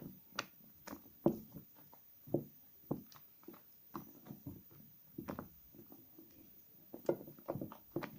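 Soaked soap scraps squished and lathered by hand, giving soft, irregular squelches every half second or so.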